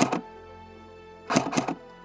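Background music with sustained chords, broken about one and a half seconds in by a short, loud burst of rapid cracks.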